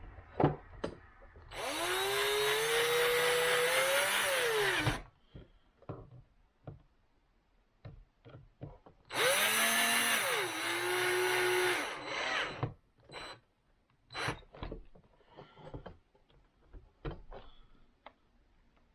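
Power drill driving screws, in two runs. In the first the motor pitch rises, then drops as it stops. In the second it starts high and falls as the screw pulls down and loads the motor. Scattered clicks and knocks follow.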